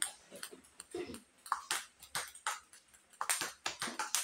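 Table tennis rally: the ball clicks back and forth off the paddles and the table several times a second.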